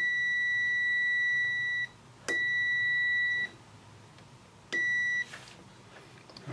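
The Zotek ZT203 pen multimeter's continuity beeper sounds a steady high beep while the test lead is touched to the probe, showing a closed circuit. There are three beeps, the first nearly two seconds long, the second about a second, the last about half a second, and each starts with a small click as the tips touch.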